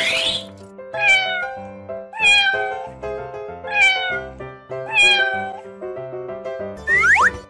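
A cat meowing four times, each meow falling in pitch, about a second or so apart, over children's background music. A short rising glide sound effect comes near the end.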